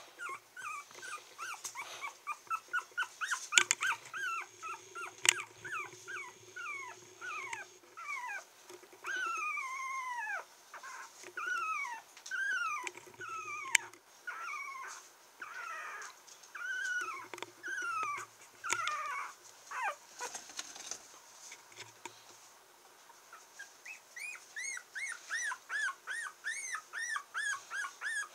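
A 22-day-old toy poodle puppy whining and squeaking over and over. Quick runs of short, high squeaks come at the start and again near the end, with longer falling whines in between and a brief lull about two-thirds of the way through. A couple of sharp clicks sound near the start.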